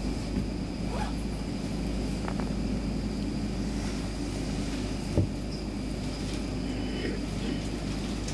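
Steady hum of a Stockholm Metro C6 subway car standing still in a tunnel, with a faint high whine, and a single sharp knock about five seconds in.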